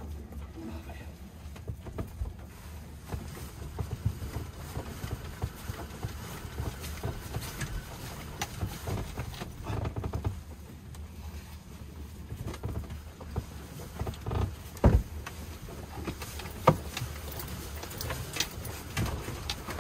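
Irregular knocks and clicks inside a moored sailboat's cabin over an uneven low rumble, with two sharper knocks near the end. The diesel engine is not running.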